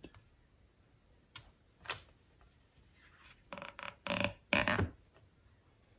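Short rubbing and scraping noises, three in a row about halfway through, from a cleaning patch on a pull-through string being worked at a .22 rifle barrel, after a couple of faint clicks.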